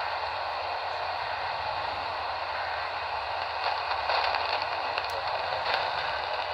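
Radio receiver static: a steady hiss with a few faint crackles a little past halfway. The station's broadcast has faded out mid-alert.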